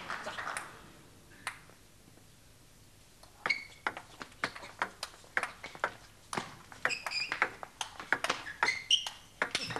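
Table tennis rally: a celluloid ball clicking back and forth off the bats and the table in quick, irregular succession, some hits with a short ringing ping. The hall noise dies away in the first second, one lone bounce comes before the rally, and the rally begins about three and a half seconds in.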